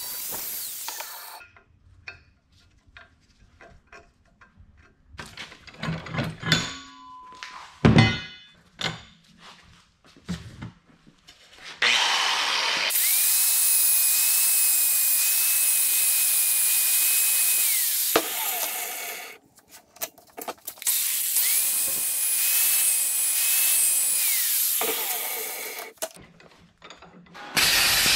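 Angle grinder beveling the edges of a steel bracket held in a vise: two runs of several seconds each, grinding with a steady motor whine, with the motor winding down between them. Before the runs come scattered metal clanks and knocks. Just before the end a crackling hiss of arc welding starts.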